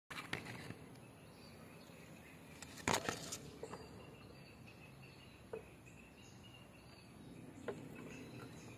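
Outdoor garden ambience with a faint, steady insect drone. A few sharp knocks and rustles cut through it, the loudest a short cluster about three seconds in.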